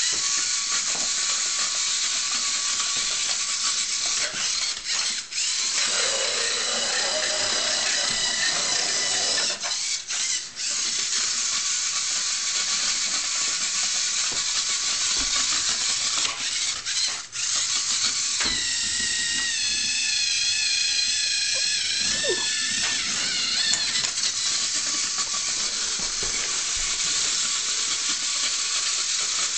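Lego Mindstorms NXT servo motors whirring as the robot drives, a steady geared whine with several high tones. It stops briefly a few times, and the whine shifts in pitch after each stop.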